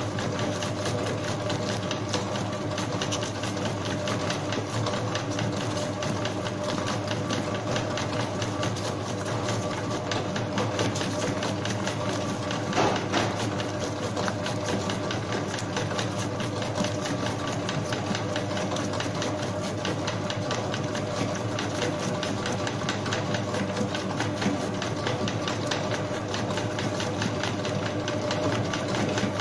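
Spiral dough mixer running steadily as its hook kneads bread dough: an even motor hum with a fast, regular clatter, and one sharper knock about halfway through.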